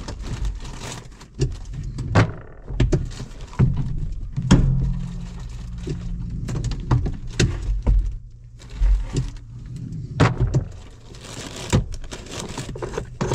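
Irregular knocks and thunks with rustling of plastic wrapping as a person sits down and shifts about on a newly installed Grammer tractor seat still wrapped in plastic.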